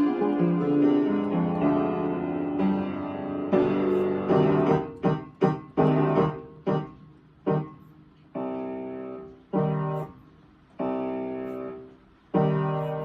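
Piano playing: flowing, held chords at first, then from about four seconds in a series of separate, detached chords with short pauses between them, each one ringing and fading.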